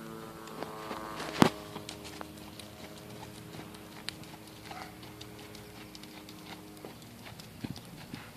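Hoofbeats of a grey pony trotting on a sand arena, a run of light irregular clip-clops, with one sharp knock about a second and a half in.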